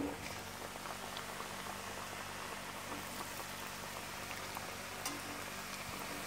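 Hot oil bubbling and sizzling steadily around rice-flour murukku freshly dropped in to deep-fry, with a short sharp knock at the very start as a piece goes in.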